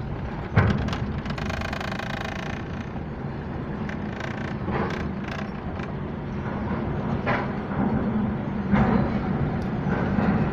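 A vehicle engine running steadily under load on a ferry's wet internal ramp, where the tyres lose grip. A sharp knock comes about half a second in, followed by scattered clattering.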